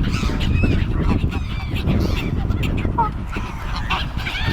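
A crowd of waterbirds calling over one another: repeated goose honks mixed with short rising and falling cries, over a steady low rumble.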